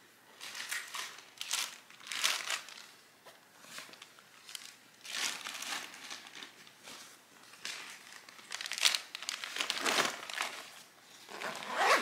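Rustling and crinkling of a fabric backpack being packed by hand, in irregular bursts as its pockets are opened and items pushed in.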